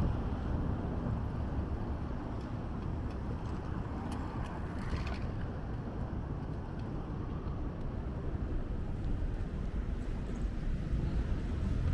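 City street traffic ambience: a steady low rumble of road traffic, with a brief hiss about five seconds in.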